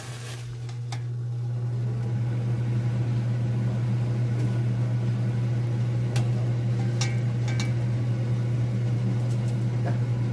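Kitchen appliance fan, most likely a range hood, switched on and spinning up over about two seconds to a steady low hum. A few light clinks, about six to eight seconds in.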